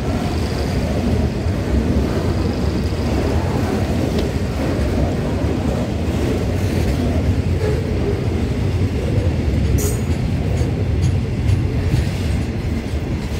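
Freight train of rail tank wagons rolling past: a steady rumble of steel wheels on the rails, with a few sharp clicks about ten seconds in.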